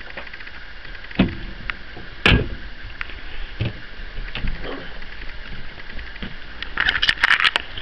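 Knocks and clicks of a cabin locker door and its catch being handled and pulled open, ending in a quick run of rattling clicks near the end, over a steady hiss.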